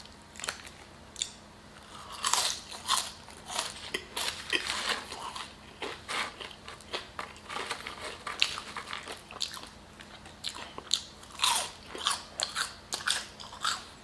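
A person biting and chewing crunchy fried food, with irregular crunches and crackles all through.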